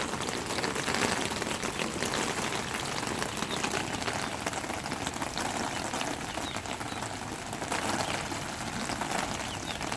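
Steady rain falling on a tarp roof overhead: a dense, even patter of drops.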